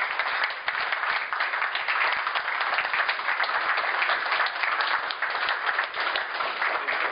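A roomful of people applauding, a dense, steady patter of many hands clapping.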